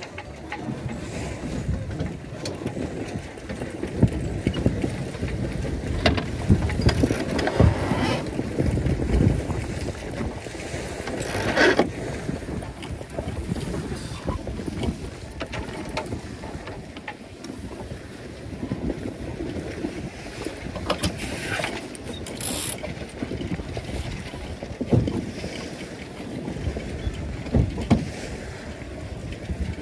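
Sailing yacht under way in strong wind: a steady rush of wind and water against the hull, with wind noise on the microphone and a number of short knocks and splashes now and then.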